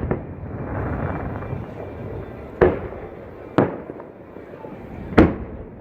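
Aerial fireworks bursting: three sharp booms, about two and a half, three and a half and five seconds in, each trailing off in an echo, with a low rumble from the display between them.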